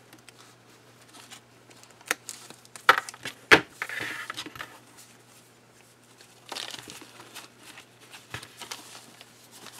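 Thin foam packing wrap rustling and crinkling as it is pulled and cut with scissors off a clear plastic model-kit sprue. A few sharp clicks come about two to three and a half seconds in, the loudest of the sounds, with more rustling bursts just after and again near seven seconds.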